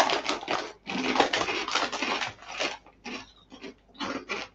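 Kettle-style potato crisps being crunched in the mouth, mixed with a foil crisp bag crinkling as a hand reaches in, in irregular crackly bursts.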